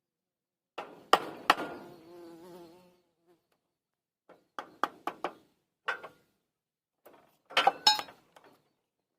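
Hand tools knocking and tapping on wood in short irregular clusters, with a loud pair of knocks just over a second in and another loud group near the end. A brief wavering buzz follows the first loud knocks.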